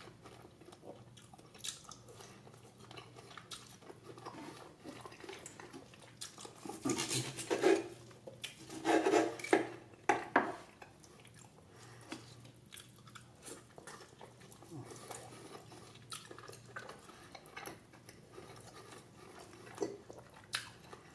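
A person chewing and biting steak, with scattered small clicks of cutlery and dishes; a few louder bursts of eating noise come about seven to ten seconds in.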